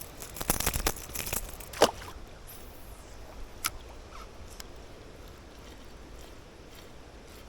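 Clicks and rattles of fishing tackle being handled, with one sharp knock about two seconds in and a couple of lighter clicks later. After that only a faint steady rush of river water.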